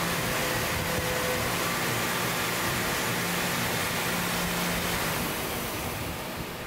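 CNC mill spindle running a small end mill through aluminium to cut a counterbore, a steady hiss with faint steady tones under it. The sound fades gradually from about five seconds in as the cut ends and the tool retracts from the part.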